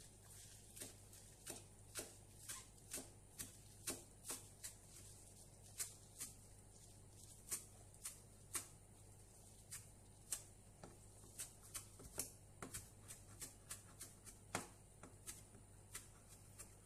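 Kitchen knife chopping fresh herbs on a plastic cutting board: a run of faint, irregular taps of the blade striking the board, a few each second.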